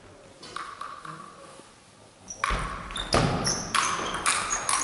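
Table tennis rally: the celluloid ball clicks sharply off bats and table in quick succession, with shoes squeaking and a heavy footwork thud on the hall floor. The rally starts about halfway in, after a few soft ball taps.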